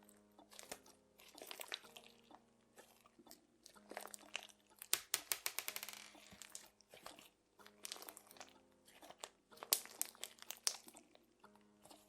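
Crunchy slime being squeezed and poked by hand, crackling and popping in irregular bursts, with a dense run of rapid pops about five seconds in.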